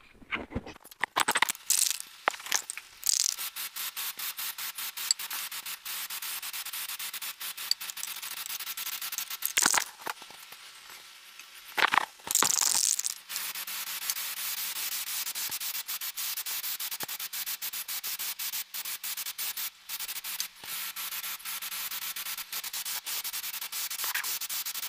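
Aerosol spray can of Diton Premium Primer Grey hissing as it lays the base coat on a car wheel rim: a few short bursts at first, then long, nearly continuous spraying with a short break midway.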